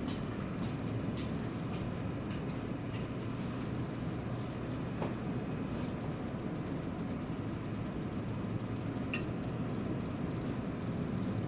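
Seibu Railway electric train heard from inside the car: a steady low rumble, with faint regular clicks roughly two a second.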